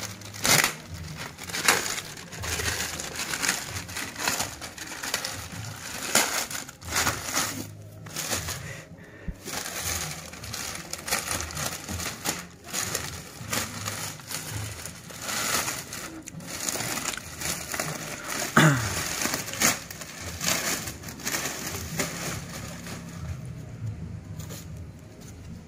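A cardboard box and its packaging being opened and handled: irregular rustling, crinkling and scraping, with frequent short knocks.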